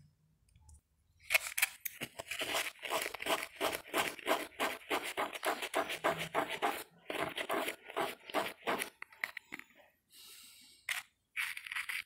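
Dry steel wool (Bombril) scrubbing a small metal contact from a washing machine's thermo-actuator in quick back-and-forth strokes, rubbing off rust that was making the contact fail. The scrubbing starts about a second in and stops around nine seconds, with a few short scrapes near the end.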